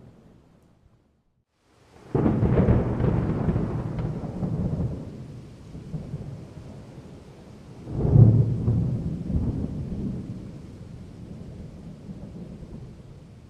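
Thunderstorm: after a brief silence, a sudden thunderclap breaks about two seconds in and rolls away over several seconds, then a second loud clap about eight seconds in rumbles and fades, with a steady hiss of rain underneath.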